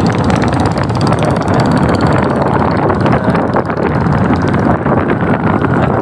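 Motorcycle running at road speed with wind rushing over a helmet-mounted phone's microphone, a steady loud rush with a fluttering edge.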